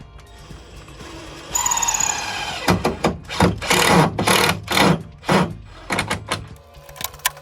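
Cordless drill/driver driving a screw into a wooden gate: the motor whines for about a second, then runs in about eight short bursts as the screw is driven home.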